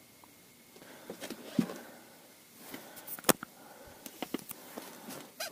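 Rustling and scattered light clicks and taps of hands handling small ice-fishing rods on the ice. A single sharp click about three seconds in is the loudest.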